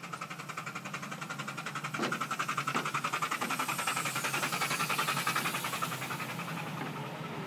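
Miniature live-steam locomotive puffing as it moves, its exhaust beats quick and regular at several a second, growing louder about two seconds in.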